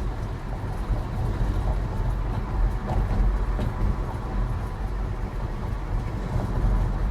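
Tesla electric car driving on a noise test, a steady low road rumble, after an attempt to clear a rock lodged behind a front brake rotor. No sharp brake screech stands out.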